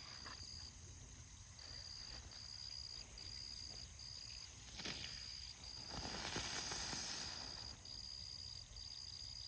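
Insects chirping: a high, thin chirp repeating in short pulses. A brief hiss swells and fades about six seconds in.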